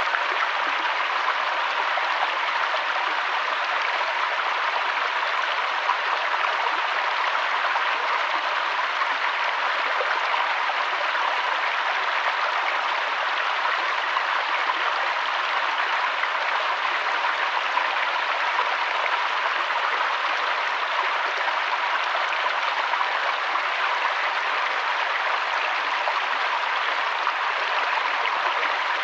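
River water flowing, a steady, even rush with no changes.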